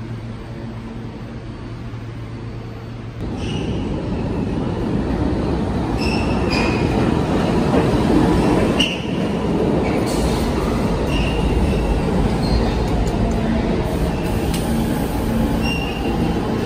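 New York City subway R46 train pulling into the station: a rumble of wheels on the rails starting about three seconds in, with intermittent high-pitched wheel squeals. Before it arrives there is a steady low hum from the R160 train standing at the platform.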